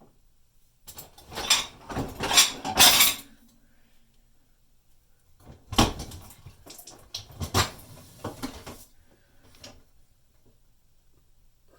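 Dishwasher being opened, its racks and the washed dishes and cutlery in them clattering and clinking in two spells: the first about a second in, the second just before the middle and running on for about three seconds.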